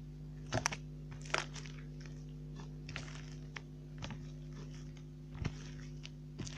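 Slime being squeezed and worked by hand, giving scattered sticky crackles and pops over a steady low electrical hum.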